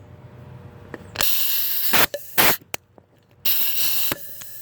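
Compressed air hissing in three short bursts, the longest about a second, as shop air is fed through a compression tester hose with its Schrader valve removed to pressurise an engine cylinder for a leak-down check on bent valves.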